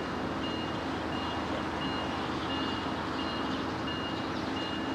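NEG electronic railroad crossing bell ringing steadily, a short high electronic tone repeating about three times every two seconds, over a steady low hum.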